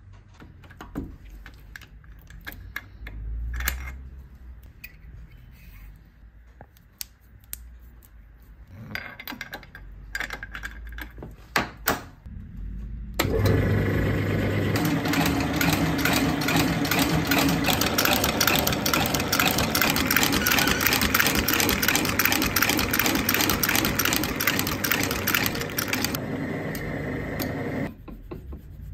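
Sole-stitching machine sewing a new leather sole to the welt of a cowboy boot, starting abruptly about halfway in with a fast run of repeated needle strokes and stopping near the end. Before it starts there are scattered handling clicks and knocks.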